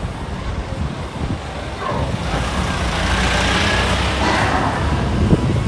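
A motor vehicle passing on a city street: engine rumble and tyre hiss growing louder from about two seconds in, loudest around the middle.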